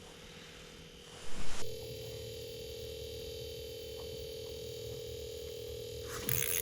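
A steady electronic tone, like a dial tone, holds throughout. It jumps much louder about a second and a half in, just after a short loud knock.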